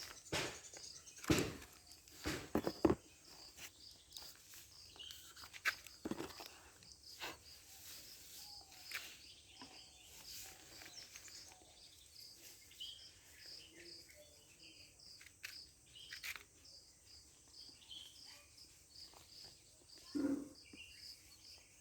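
Sharp clicks and knocks of a phone and its box being handled, loudest in the first few seconds. Insects chirp steadily in the background, a high chirp about twice a second.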